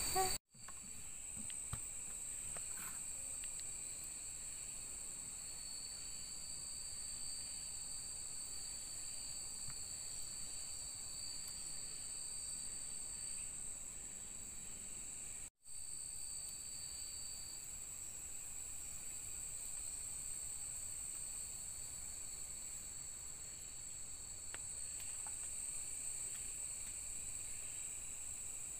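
Night insects, crickets among them, calling together in a steady high-pitched chorus, with a second, lower steady tone underneath. The sound cuts out completely twice, briefly: once about half a second in and again a little past the middle.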